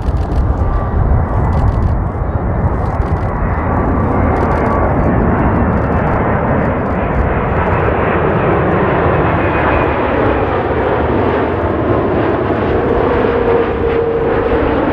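Boeing 787-9 on final approach with its landing gear down, its Rolls-Royce Trent 1000 engines giving a steady, loud jet rush. Faint whining tones slide slowly lower in pitch as it passes close.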